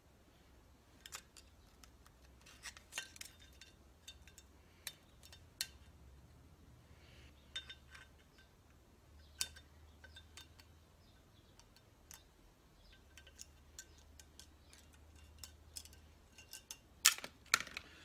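Scattered small metallic clicks and scrapes as a steel pick and pliers dig a remnant of an old bolt out of a bolt hole in a truck's wheel hub. A few sharper, louder clinks come near the end.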